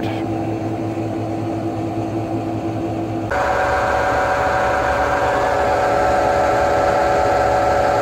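Hotpoint front-loading washing machine running with freshly replaced drum bearings: a steady mechanical hum with a whine. About three seconds in it suddenly gets louder and a higher whine joins in. The owner calls the repair by no means perfect.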